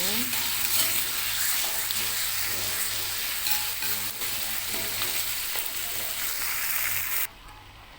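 Onions and ground spice paste of garlic, shallots, turmeric and ginger sizzling in hot oil as they are stir-fried in a pan. The sizzle cuts off suddenly near the end.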